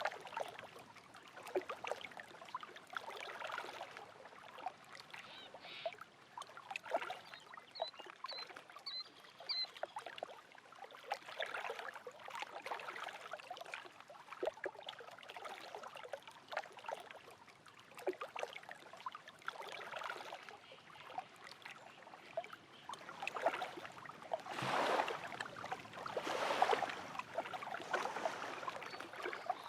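Small lake waves lapping and splashing at the shore in irregular little slaps, with two louder swells near the end. A bird gives four short high chirps about eight seconds in.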